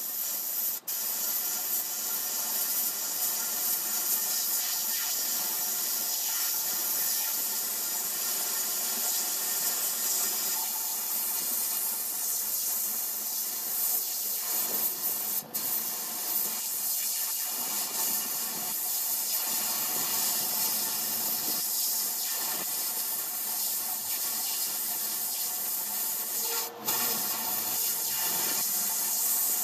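Steady, high hiss, broken off for an instant three times: about a second in, midway, and near the end.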